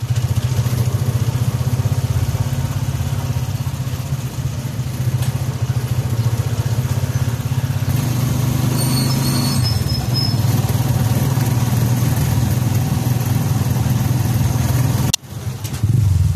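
Honda motorcycle engine of a tricycle (motorcycle with sidecar) running steadily while under way, heard from the sidecar as a continuous low hum with road noise. About fifteen seconds in, the sound breaks off sharply and starts again louder.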